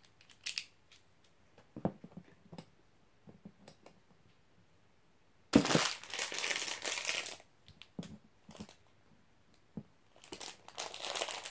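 Small plastic clicks as the parts of a Beyblade X spinning top are handled and snapped together, then plastic packaging crinkling for about two seconds near the middle and again near the end.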